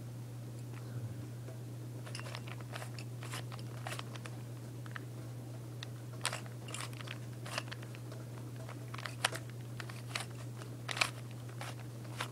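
Plastic Rubik's Cube layers being turned by hand: irregular clicking and clacking as the faces are twisted, coming thicker in the second half, over a steady low hum.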